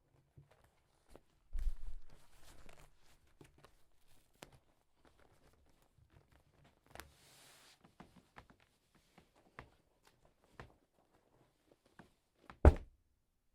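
Fabric rustling and small handling clicks around a heavy book wrapped in cloth, with a low thud and rustle about a second and a half in and a louder, deeper thud near the end: the fabric-wrapped book dropped as a foley body fall.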